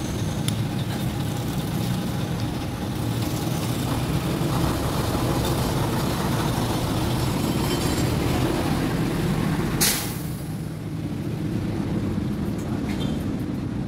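Steady street traffic: vehicle engines rumbling as they pass, with a short sharp hiss about ten seconds in.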